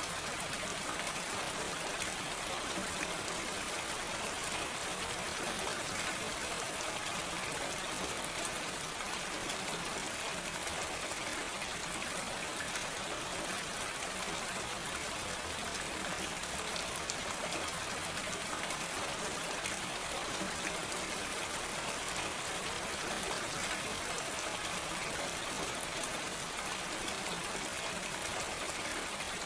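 Steady gentle rain with no thunder: an even hiss of falling rain with many small drop ticks, constant throughout.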